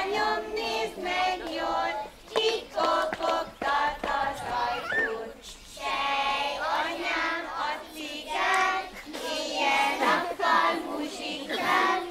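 A group of young children singing a Hungarian folk song together, in phrases with short pauses between them.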